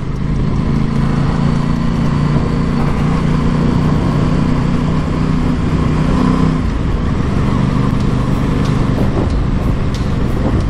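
Aprilia Tuono 660's parallel-twin engine running steadily at low cruising speed, heard from the rider's helmet camera over a broad rush of wind and road noise. Its note changes about two-thirds of the way through.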